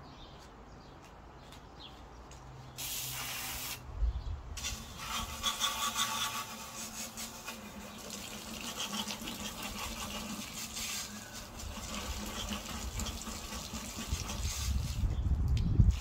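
Tap water running and splashing into a sink. A short hiss comes about three seconds in, then a steady flow runs for about ten seconds, with a low rumble rising near the end.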